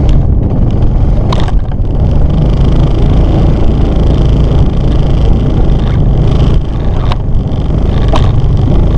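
Off-road vehicle engine running loudly while riding over the snow, with heavy wind rumble on the microphone and a few sharp knocks from bumps.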